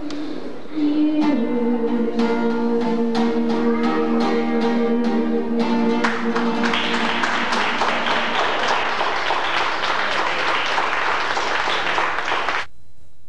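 A small acoustic group led by an acoustic guitar ends a tune with held notes and strummed chords. Clapping takes over about halfway through, and the sound cuts off abruptly near the end.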